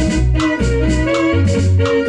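A small band playing a son jacalteco instrumental: electronic keyboards holding sustained tones over an electric bass line, with a drum beat about twice a second.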